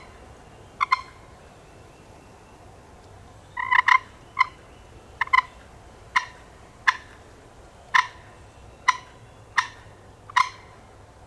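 Turkey clucks: about a dozen short, sharp single notes, one pair or two coming in quick succession, spaced irregularly under a second apart, close and loud.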